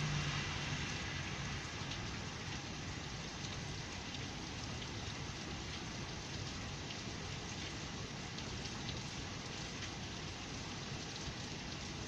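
Heavy rain pouring steadily, with scattered drops ticking close by. A car drives past on the wet street at the start, its low hum fading within the first second or two.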